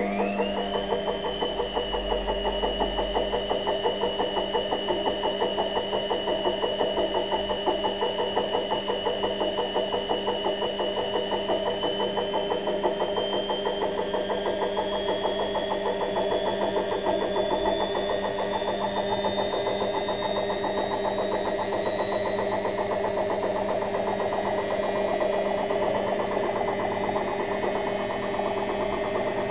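Washing machine humming as it runs: a high whine rises quickly in the first second, holds steady, then climbs slowly in pitch through the second half, over a fast, even throb.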